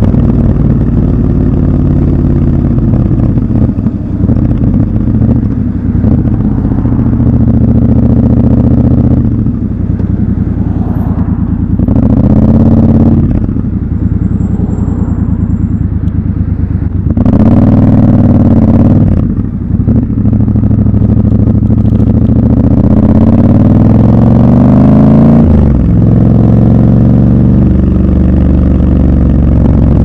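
Triumph Scrambler 1200 XC's 1200 cc parallel-twin engine and exhaust, heard from the rider's seat while riding in city traffic. Revs rise in several pulls through the gears and ease off between them.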